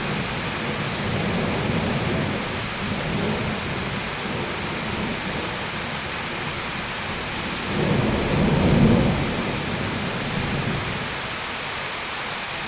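Steady heavy rain with rolling thunder, the thunder swelling into a louder low rumble about eight seconds in and then fading back.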